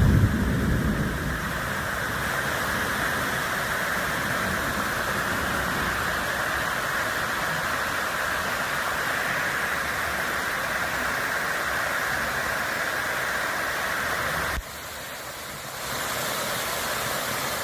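A steady rushing noise that cuts off abruptly about fifteen seconds in, then returns a second later as a brighter hiss.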